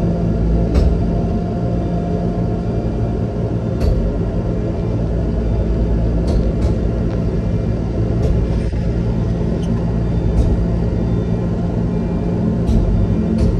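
Terex Quadstar's engine running steadily at a constant speed, a loud even rumble, with a few short sharp clicks scattered over it.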